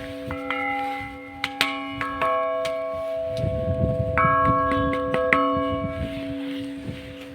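Several church bells ringing together in an irregular sequence of strokes, each stroke's hum lingering and overlapping the next.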